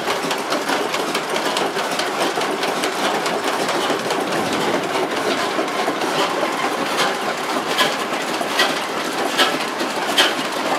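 Old Dutch-built stationary industrial diesel engine running, with a steady, busy mechanical clatter. From about halfway through, a sharp knock repeats a little more often than once a second.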